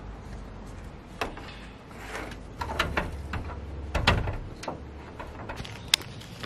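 Scattered knocks and scrapes as a solar panel with its mounting brackets is set down and shifted on a van's metal roof.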